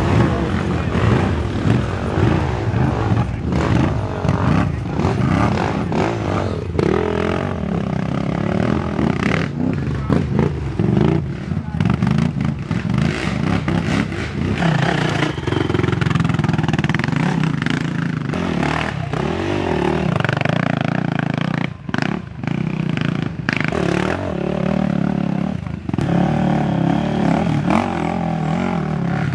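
Race ATV engines revving up and down as the quads climb a rough, rooty trail, with scattered knocks and clatter from the machines.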